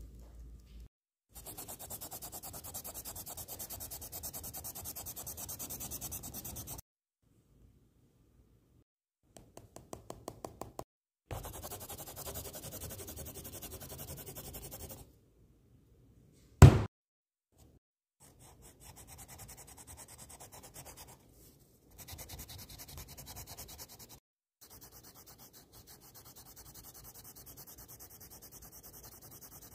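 Coloured pencil shading on paper: quick, steady back-and-forth strokes rubbing and scratching, in several stretches that cut off abruptly. A single sharp, loud knock comes about two-thirds of the way through.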